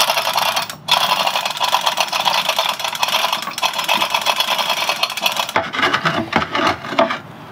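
Chain hoist being worked to lift a Yanmar marine diesel so its broken engine mounts can be replaced: a fast, steady rattle that breaks off briefly about a second in, then gives way to separate clicks and knocks near the end.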